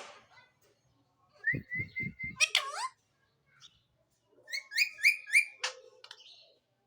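Pet parrot giving whistled calls in two bursts: a run of short repeated notes ending in falling glides, then, after a pause, four or five quick repeated notes. A few low thumps come with the first burst, and sharp clicks are heard at the start and near the end.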